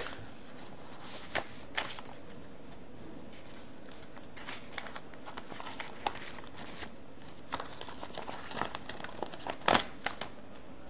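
Packaging of a silicone swim cap crinkling and rustling as it is handled, in scattered irregular crackles, with the loudest crackle near the end.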